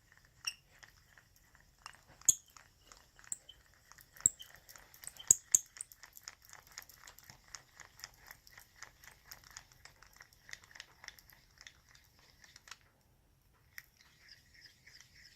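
Hurdy Gurdy tubular key cutter's bit cutting a position into a tubular key blank. A few sharp clicks come first, then a fast run of scraping ticks as the cutter is worked, which stops about 13 seconds in. After a short pause a smoother, steadier scrape follows: the swirl that tells the cut is flush at its set depth.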